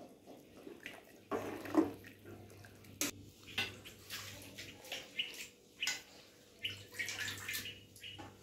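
Metal spoon stirring rice into watery gravy in an aluminium pot: irregular sloshing strokes with scrapes and clicks against the pot.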